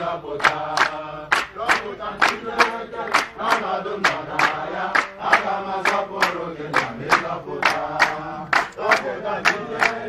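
A large group of men singing a worship song together, with hand-clapping in a steady rhythm throughout.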